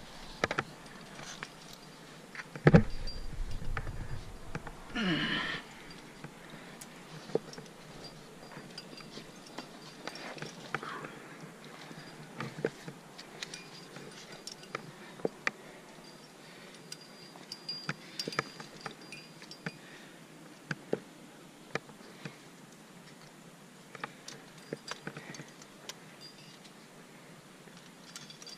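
Metal climbing gear on a trad leader's harness clinking and jangling, with irregular sharp clicks of carabiners and protection knocking together. There is one heavier knock about three seconds in and a brief sliding rasp a couple of seconds later.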